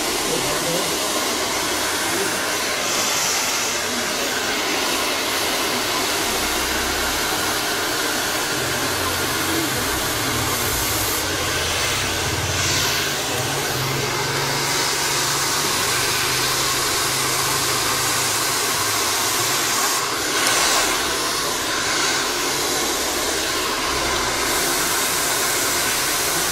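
Handheld hair dryer running steadily, blowing air onto hair close by.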